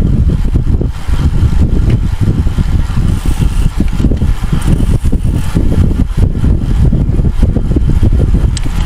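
Wind buffeting the microphone of an onboard camera on a racing bicycle at speed: a loud, fluttering low rumble.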